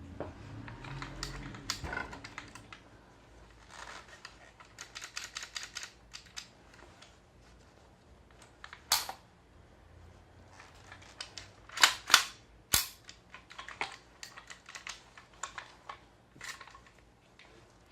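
GHK OTs-14 gas blowback airsoft rifle being handled: runs of small mechanical clicks and rattles, with a few sharp, louder clacks about halfway through, the loudest a quick pair.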